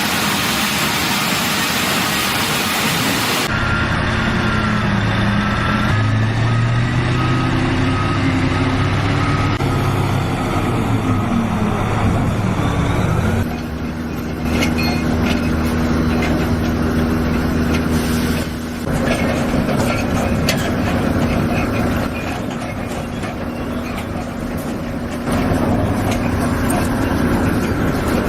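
Heavy sawmill machinery running: a loud rushing noise at first, then motors humming with a pitch that rises and falls. The sound changes abruptly several times, as if from one machine to another.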